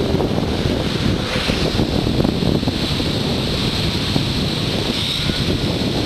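Wind buffeting the microphone, a steady rumbling flutter, over the wash of small waves breaking on the shore.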